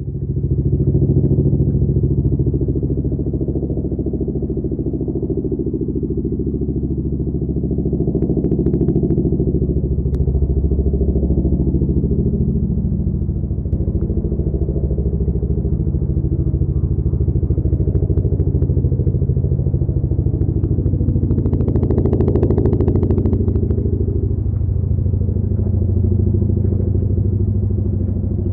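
Boeing CH-47 Chinook tandem-rotor helicopter running steadily, a heavy low drone with a rapid beat from its rotor blades. A short rise in higher-pitched noise comes about three-quarters of the way through.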